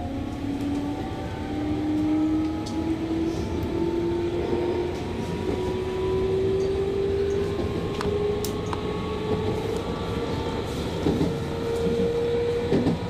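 JR West 221 series electric train picking up speed, heard from on board: a motor and gear whine rising slowly and steadily in pitch over the rumble of the wheels, with a few clicks over rail joints near the end.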